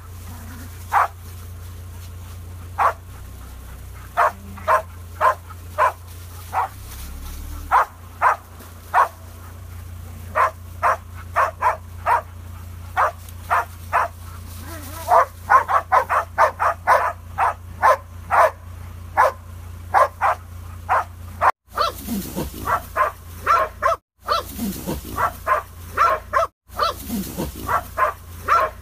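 Hunting dog barking repeatedly in short barks, at times in quick runs, baying at a wild boar in the brush. Under the barks runs the low steady hum of an idling vehicle engine.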